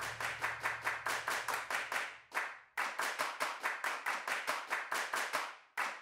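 Rhythmic hand claps, about four a second. The run of claps breaks off briefly about two seconds in and again near the end.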